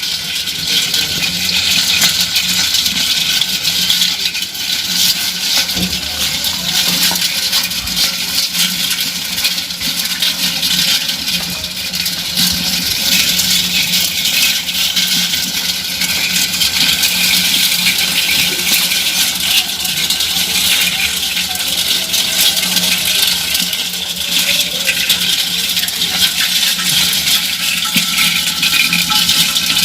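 Crabs making a dense, continuous crackling of countless tiny clicks, over a steady low hum.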